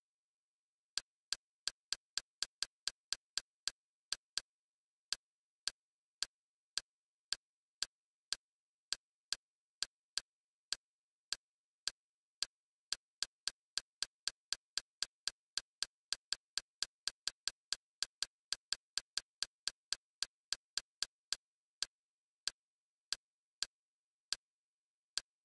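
Kodi's interface navigation clicks: one short, sharp tick for each step as the cursor moves down a menu list, coming at an uneven pace, a few a second, and closer together in the middle stretch.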